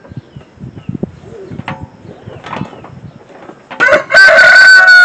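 Rooster crowing loudly and close by, beginning about four seconds in. Before it come scattered light knocks and clinks.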